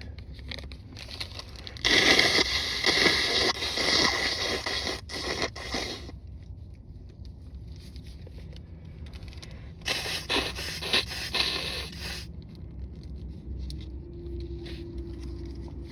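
A person blowing a nose congested by a cold, hard and wet: one long blow of about four seconds, then a shorter second blow a few seconds later, with tissue rustling.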